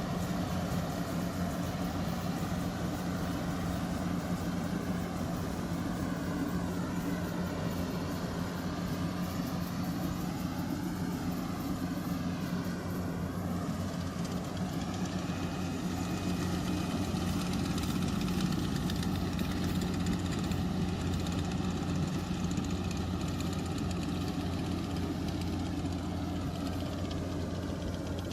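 Rice-harvesting machine's engine running steadily, an even low drone without a break.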